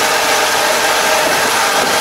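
Kubota KL270 27-horsepower tractor's diesel engine running steadily under load while driving a rear-mounted Kobashi levee-plastering machine, which is rebuilding the bank along the paddy edge. Loud, even engine and machinery noise with no change.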